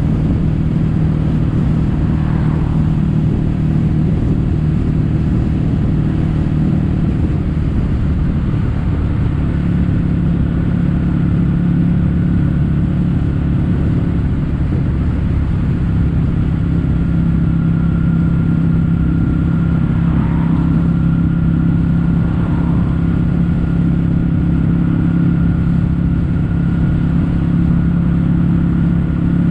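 Kawasaki W800's air-cooled parallel-twin engine running through stainless steel caburton-style aftermarket silencers while the motorcycle is ridden at a steady pace. The engine note rises slightly about a third of the way in, then holds steady.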